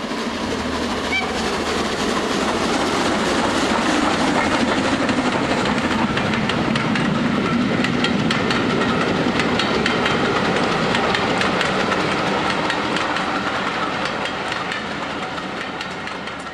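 A train running past with rail clicks and a heavy rumble. It builds, is loudest through the middle, and fades away near the end.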